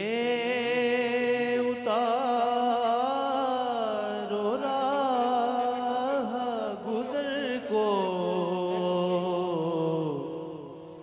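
A man singing a naat, an Urdu devotional poem in praise of the Prophet, as a solo voice in long held, ornamented phrases; the phrase fades away near the end.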